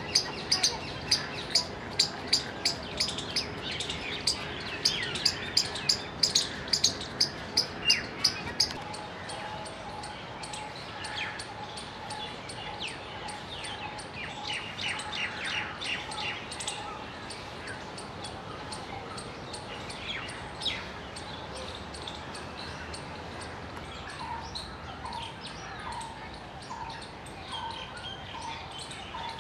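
Palm squirrel calling with a rapid run of loud, sharp chirps, about two to three a second, that stops about nine seconds in. Birds chirp in the background after that, and near the end a bird repeats a short note about once a second.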